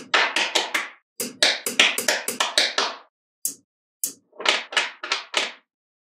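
Small magnetic balls clicking and tapping together as clusters of them are snapped onto a magnetic-ball model. The clicks come in quick runs of about four or five a second, with short pauses between the runs.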